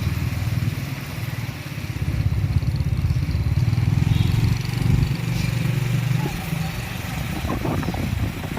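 Motorbike engine running with a steady low rumble, which thins out about six seconds in.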